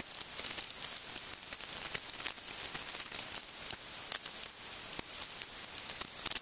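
Small irregular clicks and scraping of electrical wire being stripped and handled by hand, with a few sharper ticks, over a steady high hiss.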